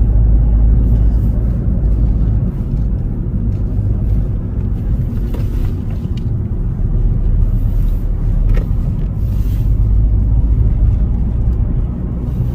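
Road and engine noise of a moving car heard from inside the cabin: a steady low rumble of tyres and engine.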